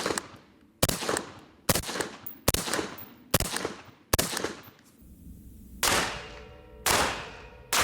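Rifle rounds striking a wooden wall, each a sharp crack with a short fading ring. Five come in quick succession about a second apart, then after a brief pause three more.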